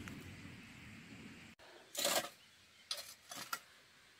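Shovel blade scraping into soil, three short scrapes in the second half. Before that only a faint, even outdoor background.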